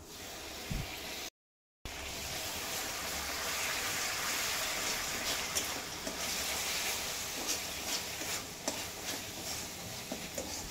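Masala paste with tomato sauce, chilli sauce and vinegar sizzling in hot oil in a steel kadhai, while a steel spoon stirs it and scrapes and clicks against the pan. The sound cuts out briefly about a second and a half in.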